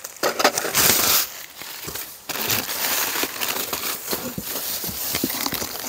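Bubble wrap and plastic packing crinkling and rustling as it is handled, with a louder burst about a second in, then continuous crackling and small clicks as hands rummage in a cardboard box of packing.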